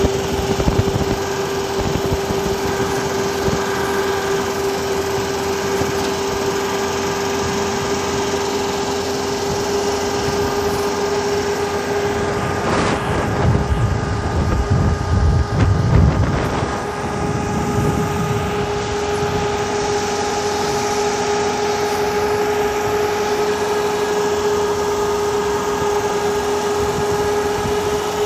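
A vehicle driving on a road: a steady engine and drivetrain drone with a held whine that slowly rises a little in pitch, over road noise. Wind buffets the microphone in gusts about halfway through.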